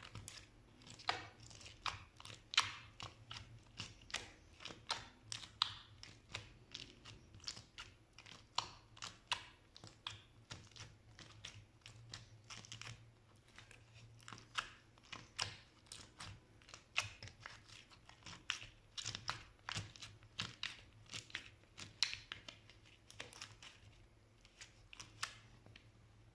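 Slime being worked by hand, making a run of short crackling pops and clicks, a few each second, at an uneven pace.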